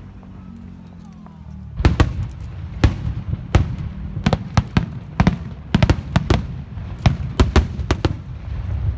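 Fireworks going off: a low rumble, then from about two seconds in a rapid, irregular string of sharp bangs that carries on over the rumble.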